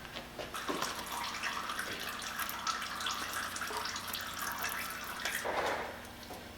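Engine oil pouring from a 2003 Toyota Matrix's oil pan drain hole into a drain pan below, a steady splashing stream that starts about half a second in and fades near the end.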